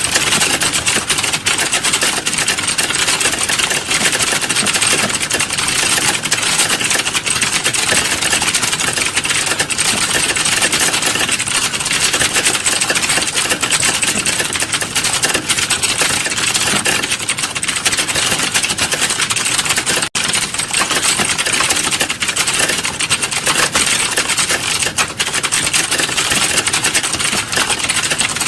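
Fast, continuous keyboard typing, the key clicks running together too quickly to count, with one very brief break about two-thirds of the way through.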